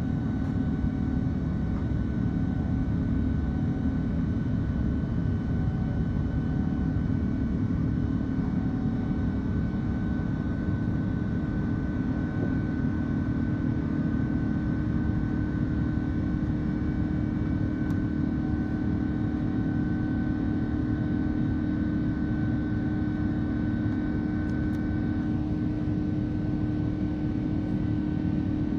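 Jet airliner's turbofan engines running steadily, heard inside the passenger cabin during the climb out after take-off: a constant low rumble with a steady hum and a fainter high whine.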